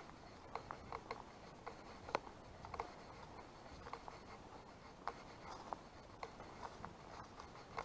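Footsteps on a dirt and gravel path: short crunching ticks, roughly two or three a second.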